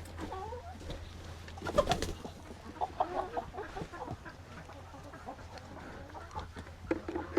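Chickens making soft low calls and murmurs, with a few sharp clicks and knocks among them.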